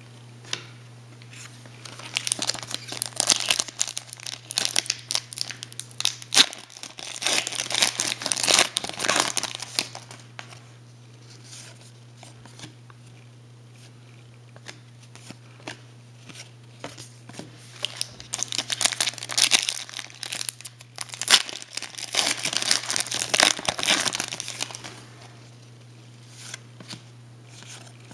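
Hockey-card pack wrappers crinkling and tearing as packs are opened and the cards handled, in two bouts of several seconds each, with quieter rustling of cards between them.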